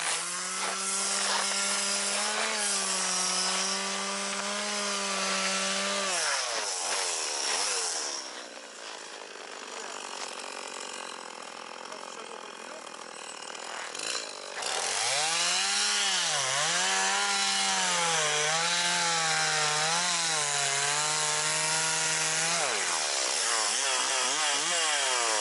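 Stihl two-stroke chainsaw running at high revs, easing off about six seconds in. After a quieter stretch it revs up again from about fifteen seconds, its pitch sagging and recovering again and again as the chain bites. It drops back around twenty-two seconds and revs once more near the end.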